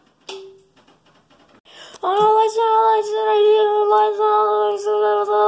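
A voice holding one long, high sung note for about five seconds, starting about two seconds in and wavering a little near the end.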